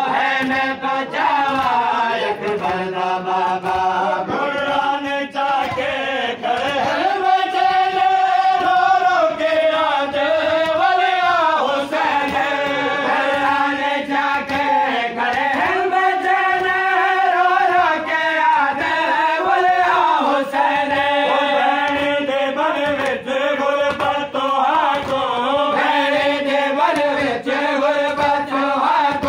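A group of men chanting a Muharram devotional lament together, unaccompanied, in long held sung phrases that rise and fall in pitch.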